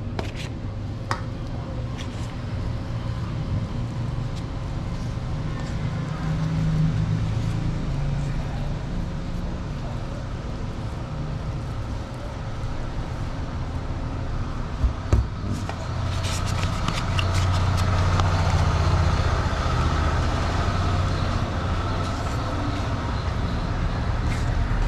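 A steady low engine rumble, as of a motor vehicle running close by, swelling a little in the second half. Two sharp knocks come about fifteen seconds in.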